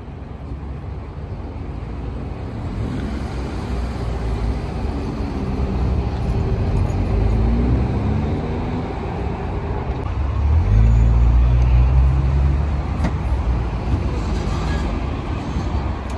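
Car engines passing at low speed, their pitch rising and falling as they go by. A louder, deeper engine drone comes in about ten seconds in and lasts a couple of seconds.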